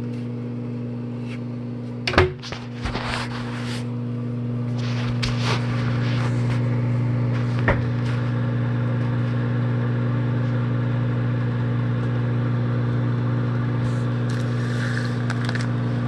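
Microwave oven running with a steady low electrical hum. There is a sharp knock about two seconds in, and some rustling of packaging and a click over the next few seconds.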